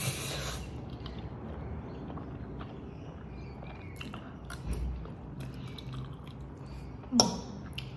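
A person slurping ramen noodles into the mouth, then chewing them with small wet clicks. A brief, sharper noise comes about seven seconds in.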